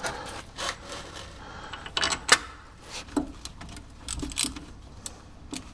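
Scattered metal clicks and short scrapes of hub mounting bolts being handled and started by hand into a new front wheel bearing hub assembly, with the loudest clatter about two seconds in.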